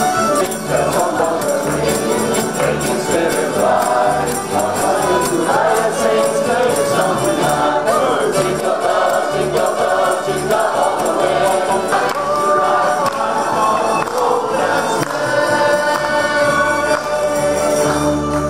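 A choir of mixed voices singing a Christmas carol, accompanied by a double bass playing a steady bass line and a light, even percussive rhythm.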